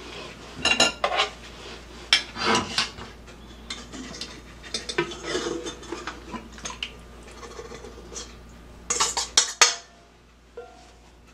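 Stainless steel mixing bowl, upturned as a lid, clanking and scraping against a metal pan as it is pried off with oven mitts. The irregular knocks and scrapes end in a quick run of louder clanks about nine seconds in.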